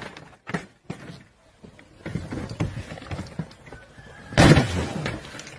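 A large ornate framed plaque being kicked and struck: a few sharp knocks in the first second, then a louder crash about four and a half seconds in.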